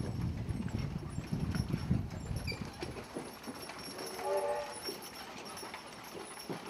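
Horse-drawn wagon passing on a dirt street: hooves clopping and wooden wheels rumbling, loudest in the first couple of seconds and then fading. A brief call sounds about four seconds in.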